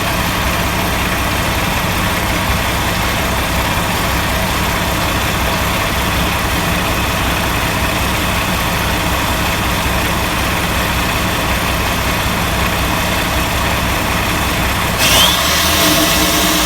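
Diesel engine idling steadily during a DPF regeneration. About fifteen seconds in, the sound changes: a short rising whine, more hiss, and a shift in the engine note.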